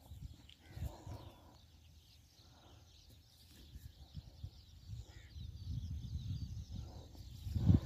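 Low rumbling of wind and handling noise on the microphone, growing louder toward the end with a heavy low thump just before the end, over faint bird chirps in the background.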